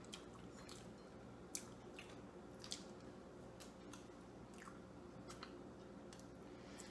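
Faint, close-up chewing of peanut butter and jam sandwiches: scattered soft, wet mouth clicks and smacks, two a little louder, over a quiet steady room hum.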